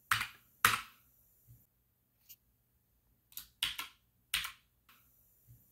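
A few sharp keystrokes on a computer keyboard: two near the start, a pause, then a quick cluster of three and one more, with a few fainter taps in between.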